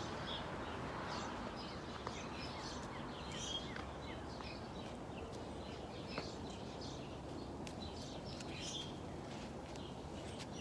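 Steady low outdoor background noise with small birds chirping now and then, and a few faint clicks.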